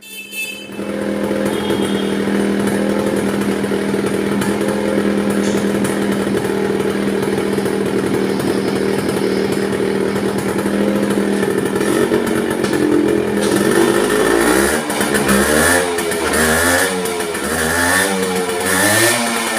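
Yamaha RX100's two-stroke single-cylinder engine running at a steady idle, then revved in several short throttle blips over the last several seconds.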